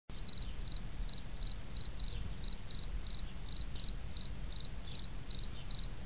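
A cricket chirping steadily, about three short, high chirps a second, over a low rumble.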